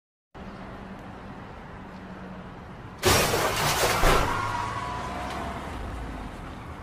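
Road traffic collision: a sudden loud crash of crumpling metal and breaking glass about three seconds in, then a second heavy impact about a second later as the struck car rolls over. Scraping and rattling fade away after it, over steady street traffic noise.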